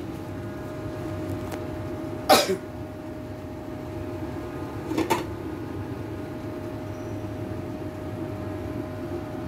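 Steady low kitchen hum with a faint steady whine, broken by two short, sharp clatter-like sounds, the louder one about two seconds in and a smaller one about five seconds in.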